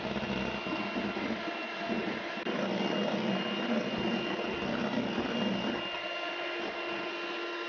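Electric hand mixer running steadily at one speed, its beaters whipping egg whites in a stainless steel bowl to stiff meringue peaks.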